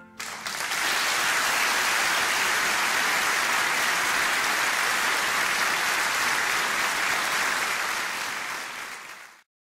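Audience applauding steadily, thinning over the last second and then cut off abruptly.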